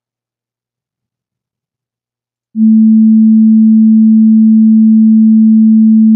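Steady, low-pitched pure sine tone from the PhET Waves Intro sound simulation, set to its lowest frequency. It starts suddenly about two and a half seconds in and holds one unchanging pitch.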